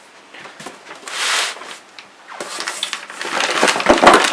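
Packaging being handled: a rustling sweep about a second in, then a longer spell of crinkling and small clicks that grows loudest near the end, as parts in plastic bags are taken out of a box.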